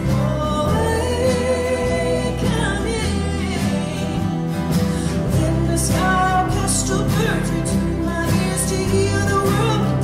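Live folk song: a woman singing lead over several strummed acoustic guitars, with a bass line underneath.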